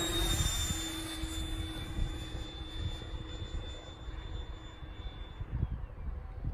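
Electric ducted-fan whine of a FlexJet RC jet in flight: a steady high whine that has just risen in pitch at the start, holds, and falls in pitch near the end.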